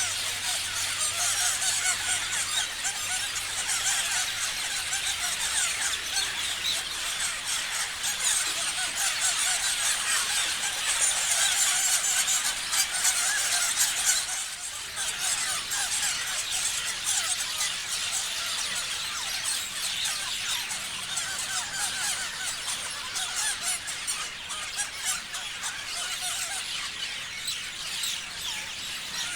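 Many parrots chirping and screeching at once in a dense, unbroken chatter of short high calls, thinning briefly about halfway through.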